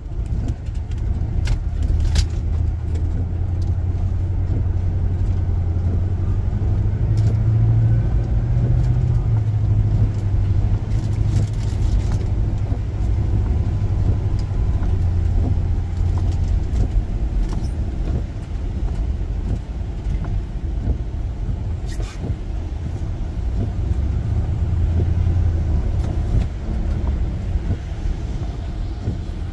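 Steady low road and engine rumble of a car driving, heard from inside the cabin, with a few faint clicks now and then.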